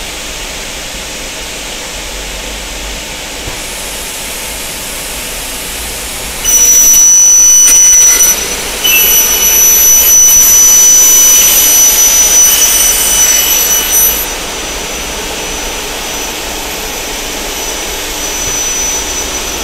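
The saw blades of a double-head CNC aluminium cutting saw spinning free, then cutting dry through a 2.2 mm Xingfa aluminium profile with no cutting oil. The cut is loud and high-pitched, from about six seconds in to about fourteen seconds, with a brief break near eight seconds. After that it settles back to the blades spinning free.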